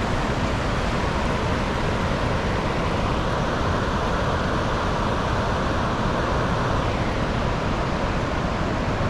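Steady rush of river water flowing over rocks, an even noise without breaks.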